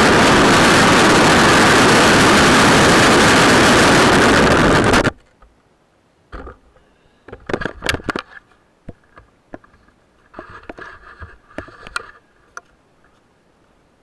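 Longboard wheels rolling on rough asphalt, a loud steady rumble from right beside the wheel that cuts off suddenly about five seconds in. After it come scattered knocks and brief rubbing as the board is tipped over and picked up by hand.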